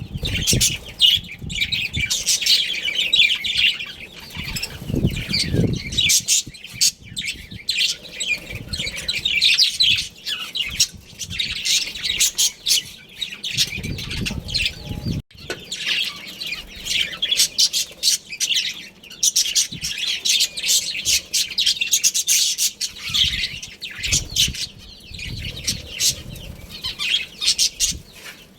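Budgerigars chirping and chattering in a dense, continuous stream of rapid high chirps, with occasional wing flutters.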